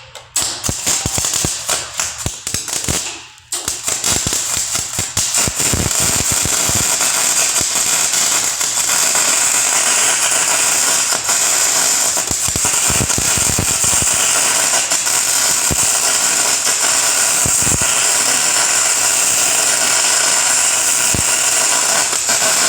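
Snap-On FM140A MIG welder's arc crackling as a bead is run, stopping briefly about three and a half seconds in, then a long steady run. It is on galvanized sheet, burning a hole through it.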